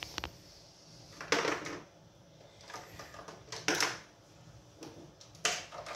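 Plastic Duplo bricks being handled and pressed together: two quick clicks at the start, then short clattering rattles about a second in, near four seconds and near the end.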